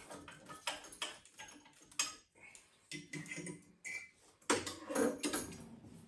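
Clicks and knocks of burner parts being handled and lifted out inside an open Worcester Bosch combi boiler, as the burner plate and its seal are worked free. A louder scraping rattle comes about four and a half seconds in.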